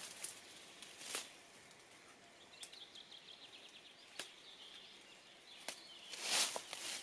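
Leaves and undergrowth rustling in short bursts as plants are picked by hand, loudest near the end. A bird trills faintly in the middle, a quick run of high notes lasting about two seconds.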